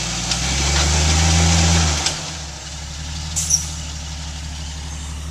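Jeep Cherokee XJ engine working under load as it crawls over boulders, swelling for about a second and a half, then easing back to a low idle about two seconds in. A few short sharp knocks, the loudest about three and a half seconds in.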